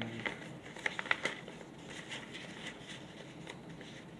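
Paper being handled: light crinkling and rustling of paper mini comic pages, with a few sharp clicks about a second in.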